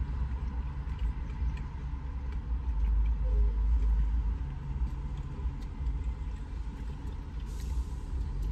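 Steady low rumble of a car heard from inside the cabin, swelling for a couple of seconds in the middle, with faint clicks of plastic forks on takeout containers.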